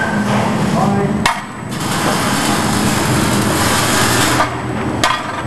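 Electric welding arc crackling steadily for about three seconds, starting and stopping abruptly. A sharp click comes just before it and another just after.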